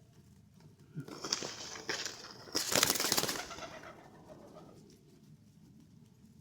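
Domestic pigeons, with a loud flurry of rapid wing flapping starting about a second in and peaking near the middle before dying away.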